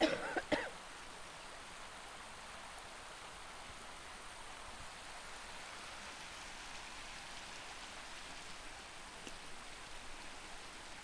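Two short coughs in the first second from a woman recovering from bronchitis, then a creek running steadily.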